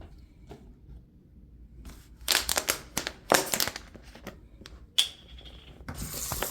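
Thin plastic being handled, crinkling and crackling in a run of sharp clicks, then water starting to run near the end.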